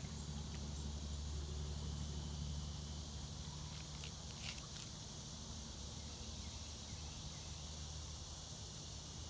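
Outdoor ambience: a steady high insect drone over a low steady rumble, with a few faint clicks about four to five seconds in.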